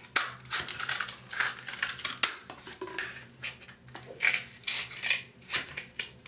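Kitchen scissors cutting through a cardboard toilet paper tube: a series of short snips and crunches, about two a second, with the metal blades clicking as they close.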